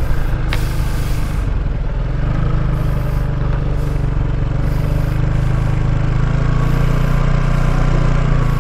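Honda ADV160 scooter's single-cylinder engine running steadily under way, with wind noise on the microphone and a sharp click about half a second in.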